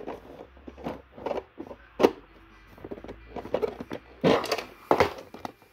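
Handling noise: skin rubbing and bumping against the recording phone, giving a string of irregular knocks and scuffs, the sharpest about two seconds in and again after four seconds.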